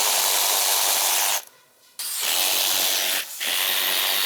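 Loud hissing in three bursts of one to two seconds each, with short gaps between them.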